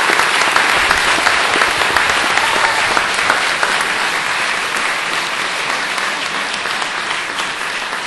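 Large audience applauding, a loud, dense round of clapping from many hands that slowly eases off toward the end.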